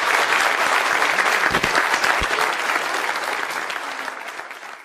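Audience applauding at the end of a talk; the clapping fades away near the end.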